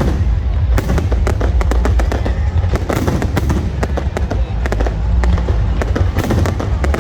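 Fireworks display: a continuous rapid barrage of bangs and crackles over a steady low rumble.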